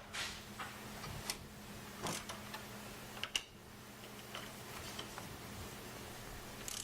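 Light scattered metallic clicks and ticks, about one a second, from an Allen wrench working the motorcycle's front fork pinch bolts loose, over a faint steady low hum.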